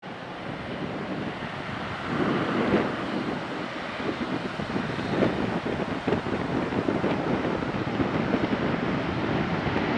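Embraer 190 jet's GE CF34-10E turbofan engines running as the aircraft turns onto the runway: a steady rushing noise growing slightly louder, with wind buffeting the microphone.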